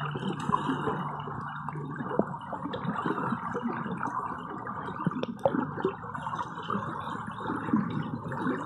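Swimmer moving underwater in a pool, heard through a submerged camera: a steady muffled rush of water and bubbles with scattered small clicks and pops.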